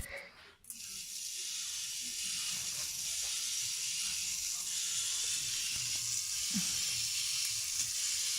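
A click, then a K'nex battery motor starts under a second later and runs steadily with a hissing whir, driving a plastic walking dinosaur model with faint irregular knocks of its legs. The model walks unevenly, its back toe catching.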